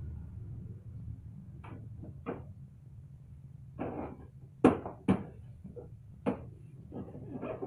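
Tools and parts knocking and clicking by hand, about ten irregular knocks with the two sharpest about halfway through, over a faint low hum.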